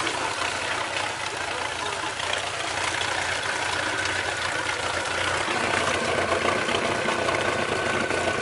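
Mercury MerCruiser 4.3 MPI V6 sterndrive engine idling steadily, with water spraying and splashing around the engine bay. A steady high whine joins about three seconds in.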